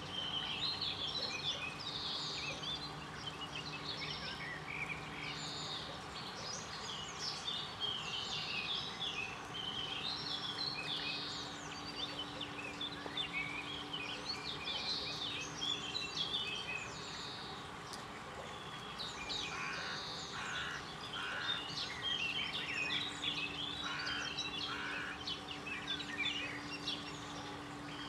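Many small birds chirping and singing at once, overlapping throughout, with a few lower, heavier calls in the second half. A faint steady hum runs underneath.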